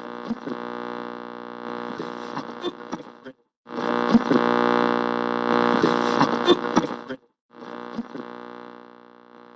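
Steady droning hum with many overtones, in three stretches broken by short silent gaps, with scattered clicks through it; it fades toward the end.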